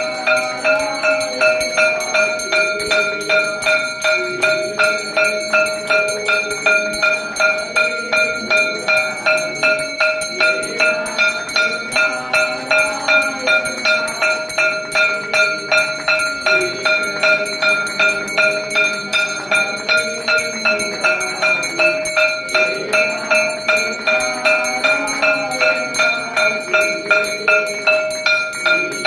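Temple bell rung in a steady rhythm of about two strokes a second, its ringing tone sustained, over a repeating devotional melody during the aarti.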